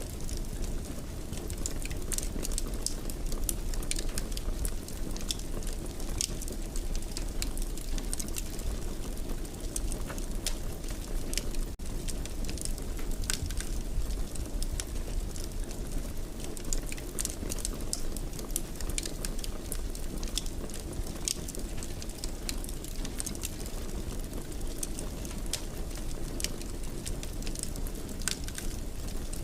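Wood fire crackling in a fireplace: a steady low rumble with many small, irregular pops and snaps.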